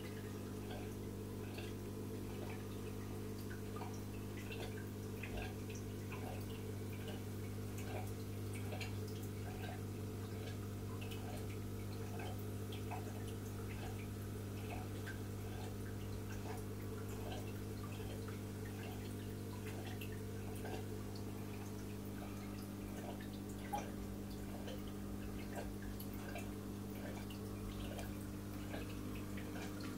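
Aquarium water circulation: a steady low hum with water trickling and dripping in small irregular ticks.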